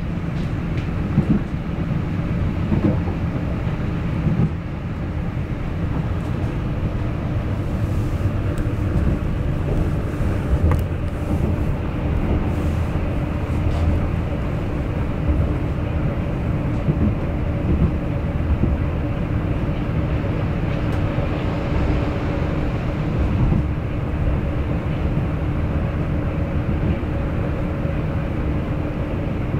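Hamburg U-Bahn DT4 metro train running at steady speed, heard from inside the passenger car: a continuous rumble of wheels on rail with a steady, unchanging hum from the drive.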